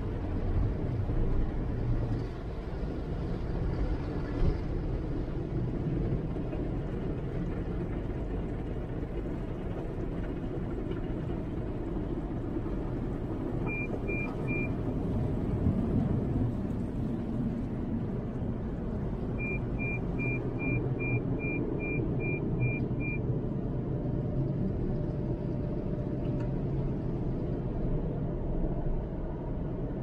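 Automatic car-wash air blower rushing over the car, heard from inside the cabin as a steady low rush. About halfway through, three short high beeps sound, and a few seconds later comes a run of about ten more, roughly three a second.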